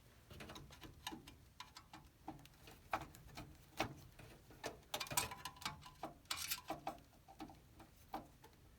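Light, irregular clicks and taps of small hardware being handled while fitting a CPU cooler to a computer's motherboard: a screwdriver and the cooler's screws and mounting parts. A denser cluster of clicks comes a little past halfway.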